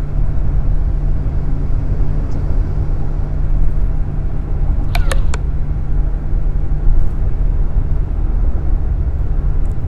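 Steady low rumble of road and engine noise inside a moving car's cabin on the highway, with three quick sharp clicks about halfway through.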